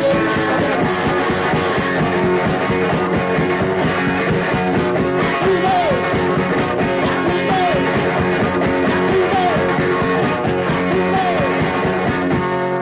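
Garage-punk rock recording with electric guitar and drums playing, and a short falling slide in pitch recurring about every two seconds. Just before the end the beat stops and a last chord is left ringing.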